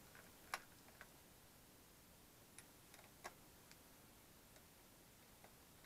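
Faint, scattered clicks and ticks of a small screwdriver working screws out of a monitor's power-supply board, the two clearest about half a second and three seconds in.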